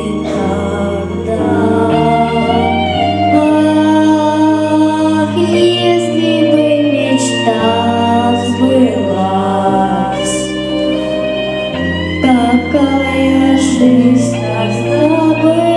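Singing over an instrumental backing track, with held bass notes that change every second or two under the melody.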